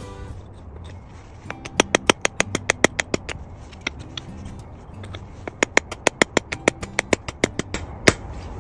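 Hammer tapping a steel punch against the base of a ceramic teacup to knock a drainage hole through it. The taps come in quick runs of about five a second with short pauses between, and one harder strike comes near the end.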